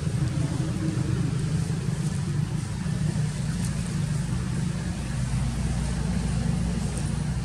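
A steady low engine rumble, like a motor vehicle idling or running nearby, with no sudden sounds standing out.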